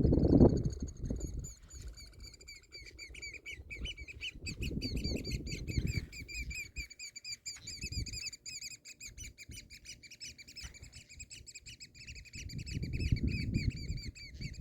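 Small songbird twittering in a long, fast run of high chirps that hardly pauses, with low rumbling noise swelling up at the start, in the middle and near the end.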